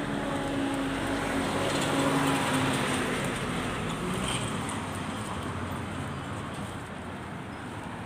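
Street traffic: a car passing close by, its engine hum and tyre noise loudest about two seconds in, then fading into steady traffic noise.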